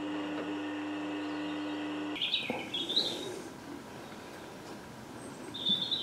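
Bench drill press motor running steadily with a fine bit, drilling a tiny hole through a ground-down copper penny; the hum cuts off suddenly about two seconds in. A few short bird chirps follow in the quieter workshop background.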